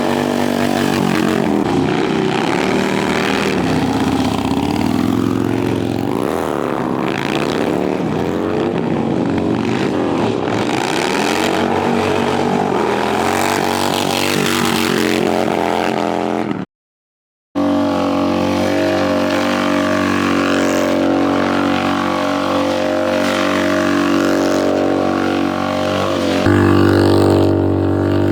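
Harley-Davidson V-twin motorcycle engines revving hard, the pitch swinging up and down again and again. About 17 s in the sound cuts out for a moment, then an engine holds a steadier high note.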